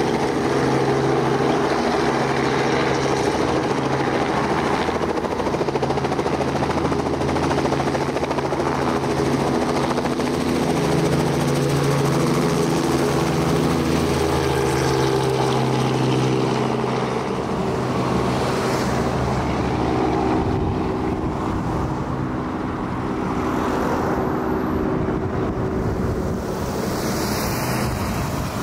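Helicopter passing, its turbine and rotor giving a steady hum of several tones that fades out a little over halfway through, leaving the rumble of road traffic.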